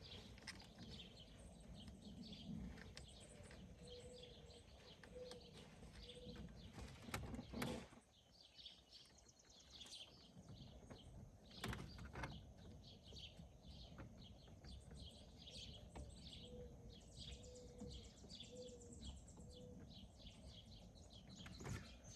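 Faint birds chirping over and over in quick short calls, with a couple of sharp knocks, one about seven seconds in and one about twelve seconds in.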